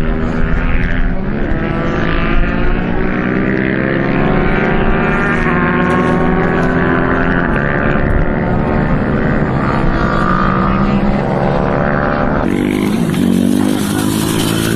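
A motor engine running steadily, its pitch drifting slowly up and down; the sound changes abruptly near the end.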